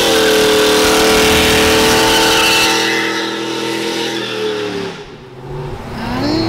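Loud exhaust of a GMC pickup fitted with a Corsa exhaust, accelerating hard. The engine note is held high and steady for about four seconds, then drops and fades about five seconds in as the truck pulls away.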